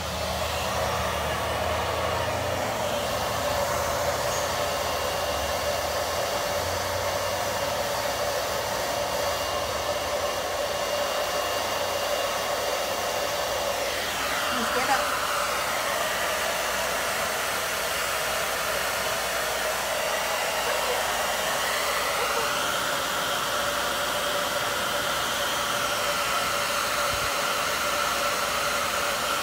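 Handheld hair dryer coming on at low speed on the warm setting and running steadily: an even rush of air with a motor hum.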